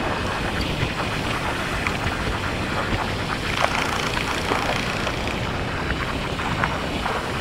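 Steady wind rushing on the microphone of a moving motorcycle, over its engine and tyre noise on the road.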